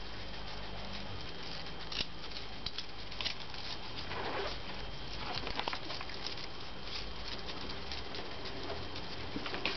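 Several pet striped skunks scurrying about on brick paving, their claws pattering and scratching in scattered light clicks, a little busier about four seconds in.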